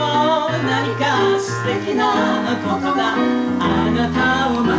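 Live French chanson performance: a woman singing through a microphone and PA with electronic keyboard accompaniment.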